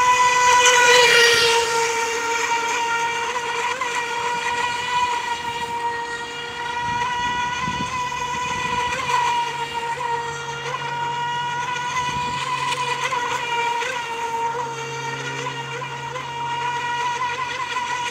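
High-pitched whine of the FT011 RC racing boat's 2400 kV brushless motor driving it at speed across the water. The pitch holds nearly steady, and it is loudest in the first two seconds.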